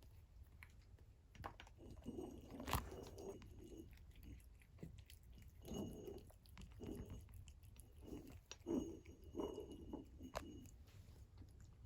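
Faint, irregular chewing and crunching from a cat eating, in short bursts with small clicks between them.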